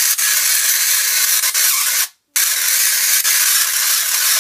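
Tesla coil, powered by a ZVS driver and flyback transformer, arcing with a loud, harsh, crackling hiss of sparks. It cuts out abruptly about two seconds in and starts again a moment later.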